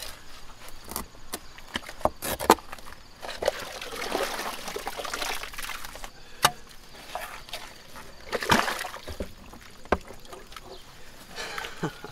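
Muddy groundwater sloshing and splashing in a flooded dig hole as hands, boots and a shovel work through it, with several sharp knocks in between.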